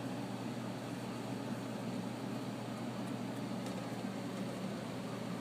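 Steady room hum and hiss from a running machine, with no change throughout.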